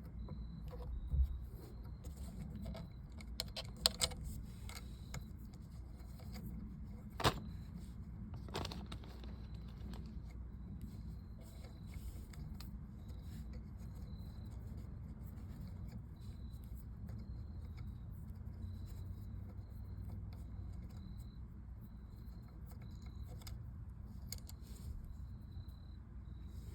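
Scattered metallic clicks and clinks of a hand tool working the screws that hold a steering wheel to its short hub, over a steady low hum. The sharpest clicks come about one, four and seven seconds in.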